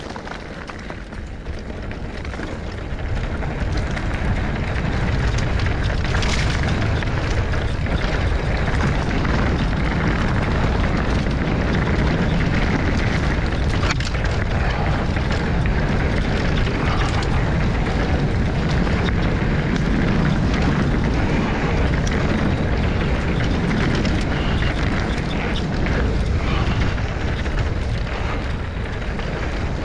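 Loud wind noise buffeting a GoPro camera's microphone. It builds over the first few seconds, then stays steady.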